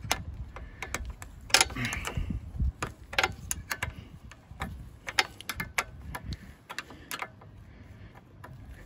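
Steel combination wrench clicking on a bolt as it is worked a short turn at a time, tightening it on a Tecumseh OHV mower engine's carburetor. About a dozen sharp, irregular metal clicks stop about seven seconds in.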